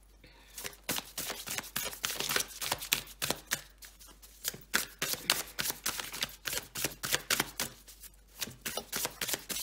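A deck of oracle cards shuffled by hand. A quick, uneven run of crisp card flicks and slaps starts about half a second in.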